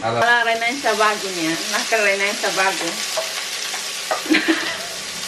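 Food sizzling in a frying pan on a gas hob, a steady hiss. A person's voice sounds over it in the first three seconds, and there are a few light knocks after that.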